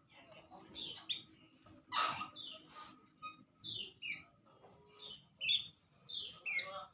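A bird calling over and over in short chirps, each one falling in pitch, with a sharp click about two seconds in.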